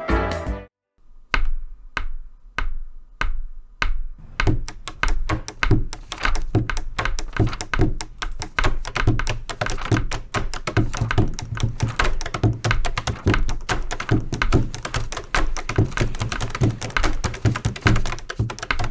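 Pencils drummed on a classroom table in pen-beat style. A few spaced taps come first, and from about four seconds in they build into a fast, dense run of taps and knocks.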